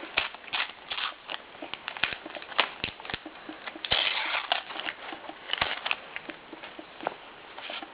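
Paper sticker packets and stickers being handled: irregular crinkling and rustling clicks, with a longer, denser rustle about four seconds in.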